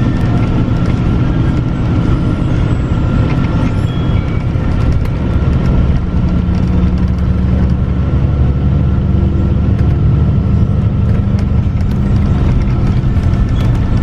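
Motorcoach bus running at speed, heard from inside the cabin: a steady low engine and road rumble with a faint steady whine above it.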